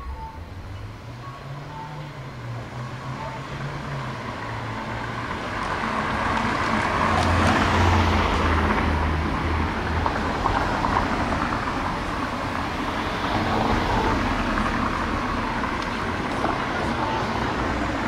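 Cars driving past on a city street: engine hum and tyre noise that swell as one passes close about halfway through, then settle into steady traffic noise.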